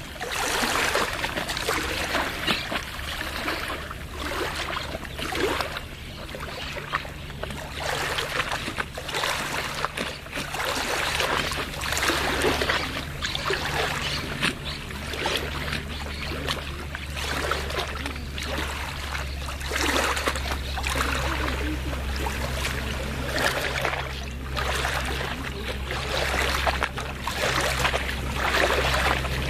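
Small waves of a lagoon lapping and splashing irregularly at the water's edge. A steady low hum joins in about five seconds in.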